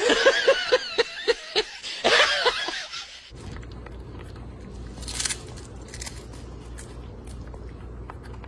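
A person laughing hard in quick repeated bursts for about three seconds, then breaking off abruptly. The rest is a steady low hum with a few faint clicks and a short hiss about five seconds in.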